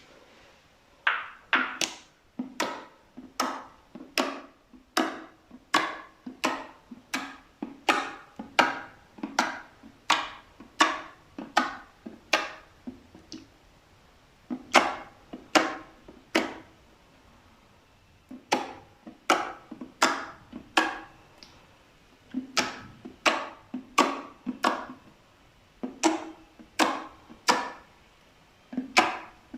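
Slime being pressed and squeezed by hand, making crisp popping clicks about twice a second in runs with short pauses.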